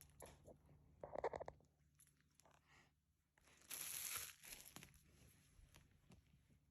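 Quiet handling of new iPad Pro packaging: faint clicks and a short rustle of paper or plastic wrap about four seconds in. A brief voiced sound about a second in.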